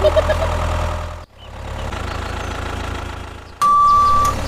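A vehicle's engine running, cutting off abruptly just over a second in and coming back fainter. Near the end a reversing alarm starts with a steady high beep, the loudest sound.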